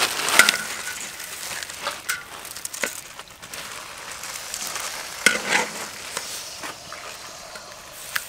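A wire mesh strainer stirring noodles through water in a large metal wok: a steady swishing, with several sharp clinks as the strainer knocks against the pan.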